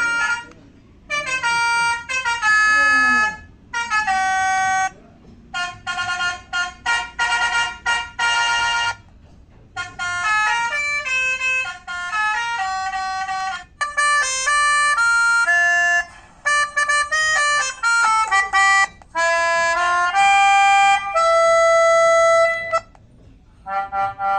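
Basuri telolet multi-tone bus horn playing a string of quick melodies: short reedy horn notes changing pitch rapidly, in phrases broken by brief pauses.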